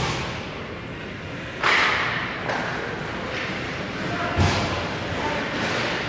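Ice hockey play in an echoing indoor rink: a few sharp thumps of puck, sticks and boards, the loudest about four and a half seconds in, with a brief hissing scrape about a second and a half in.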